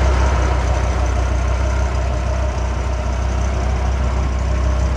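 Dodge Viper's 8.0-litre V10 idling steadily, a deep, even rumble.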